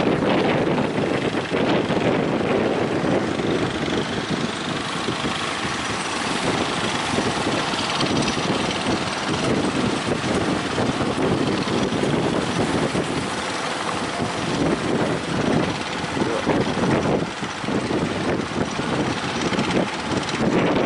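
A speedboat's motor running under heavy wind buffeting the microphone, a dense, gusting rumble with no clear engine note.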